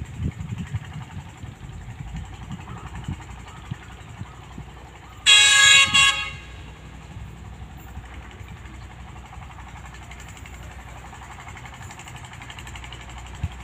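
Horn of an approaching Sri Lelawangsa diesel multiple-unit train, one loud blast of about a second, over a steady low rumble.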